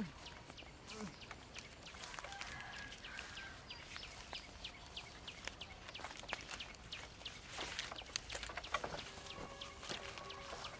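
Birds chirping in quick, high, repeated notes, several a second, with a longer held call about two seconds in and another near the end.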